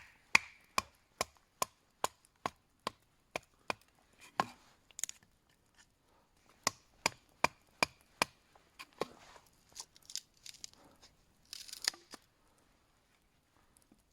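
Wood being chopped or split with a blade: sharp knocks about two to three a second, in two runs with a pause between, and a short scrape near the end.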